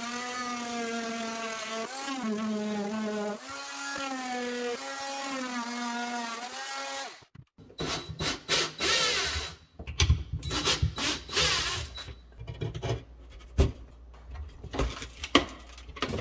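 Oscillating multi-tool buzzing steadily as it cuts through drywall for about seven seconds, its pitch wavering slightly. Then a cordless drill runs briefly, followed by irregular knocks and scraping as the cut drywall panel is worked loose and pulled away.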